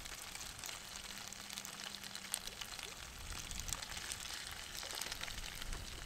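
Cream-and-Parmesan pasta sauce simmering in a Trangia sauté pan over a spirit burner: a faint sizzle of many small pops and bubbles. A low rumble comes in about halfway through.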